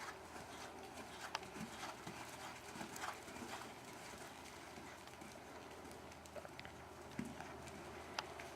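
A ridden horse's hooves and tack: faint, irregular thuds and sharp clicks over a steady low background.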